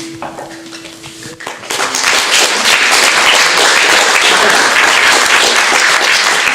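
The last plucked string note of a folk song rings and dies away, then an audience breaks into applause about a second and a half in, loud and steady.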